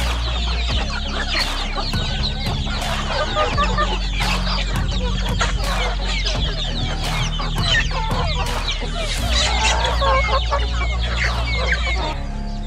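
A flock of feeding chickens and young chicks clucking and peeping, many short calls overlapping. The calls drop away at the very end.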